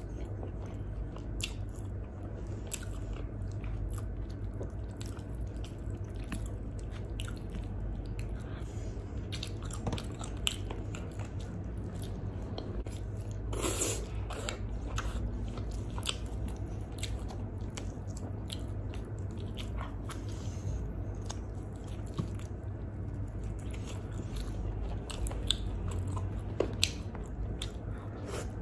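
Close-miked chewing of grilled chicken and fries, a run of wet mouth clicks and smacks, with one louder bite about halfway through.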